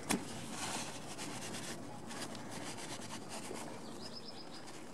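Paper towel rubbing and wiping over the brake lever pivot bracket of a Honda Forza 125 handlebar, a steady scratchy rubbing, with a sharp click right at the start.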